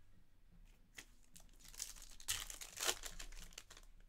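A Panini Revolution basketball card pack's wrapper being torn open and crinkled, a dense crackle loudest about two to three seconds in. Light clicks from cards being handled come before and after it.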